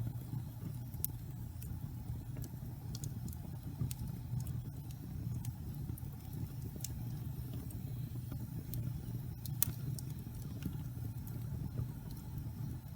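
Wood fire burning in a fireplace: a steady low rumble of the flames with scattered sharp crackles and pops from the logs, one louder pop near the end.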